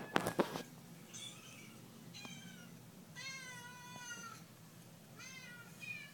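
Recorded cat meowing played through a computer's speakers: about five meows, the middle one long and drawn out. A few sharp clicks come right at the start.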